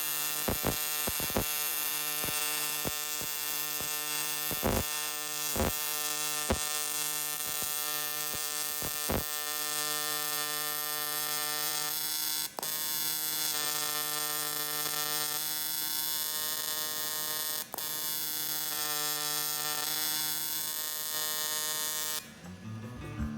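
An AC TIG welding arc on aluminum buzzing steadily, with sharp clicks scattered through the first half. The buzz cuts off suddenly near the end as the arc is broken.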